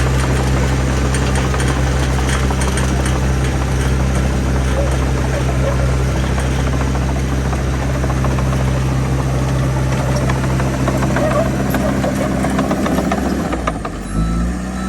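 Heavy diesel engine running steadily at a constant pitch. Near the end the sound dips briefly and a different engine tone takes over.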